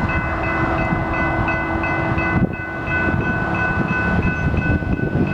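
A train rolling through a grade crossing, its wheels and cars rumbling, while the crossing bell keeps ringing with quick repeated dings.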